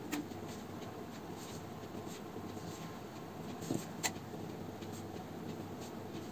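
Faint scratching of a pencil ruling lines along a plastic ruler on paper, with a few light taps as the ruler is handled, over a steady room hum.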